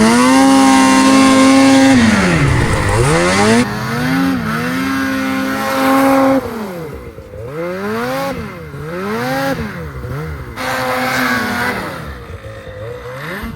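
Two-stroke mountain snowmobile engine held at high revs for about two seconds, then revving down and up repeatedly as the sled is ridden. It drops in loudness about six seconds in, and the up-and-down revving carries on.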